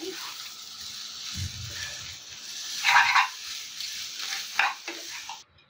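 Noodles frying and sizzling in a pan while being stirred with a spoon, with a few louder scrapes of the spoon against the pan about halfway through and again near the end. The sound cuts off suddenly just before the end.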